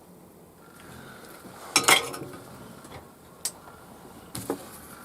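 Clatter of small tools and parts being handled and set down on a workbench. A sharp burst of knocks comes about two seconds in and two lighter knocks follow later. A faint steady high tone runs underneath from about a second in.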